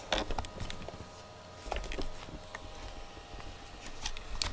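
Two cats moving against each other close by: soft, irregular rustling of fur and a few light knocks, with a faint steady hum underneath.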